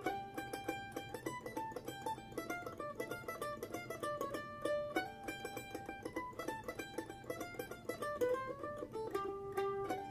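Mandolin music: a melody of fast, evenly picked notes.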